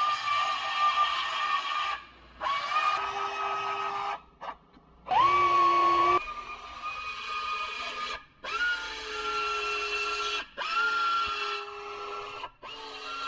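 Pneumatic narrow belt sander running in about six short bursts. Each burst spins up with a quick rising whine, then holds a steady high whine as the belt grinds paint off the spot welds on a car's rocker panel seam, baring them for drilling out.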